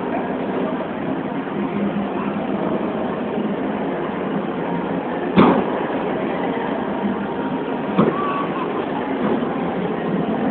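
Two heavy thuds of bodies hitting the wrestling ring's canvas, about two and a half seconds apart, the first the louder, over the steady background noise of a crowd in a large hall.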